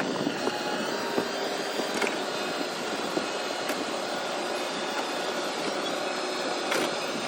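Machine engine running steadily, a continuous mechanical hum and whoosh with a few faint knocks.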